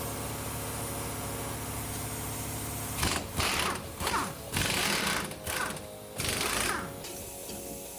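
A power tool run in several short bursts of rapid hammering, starting about three seconds in, over a steady hum.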